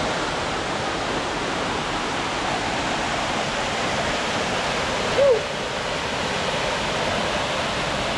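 Waterfall rushing steadily with loud, even water noise. About five seconds in, a single short note rises and falls over it.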